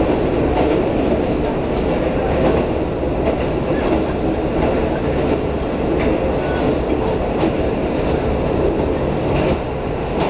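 Diesel railcar of the A-Train express (a KiHa 185) running, heard from inside the passenger carriage: a steady low rumble of engine and wheels on rail, with a few faint clicks from the track.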